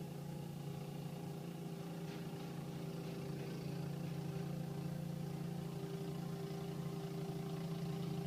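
Snowblower engine running at a steady, even pitch.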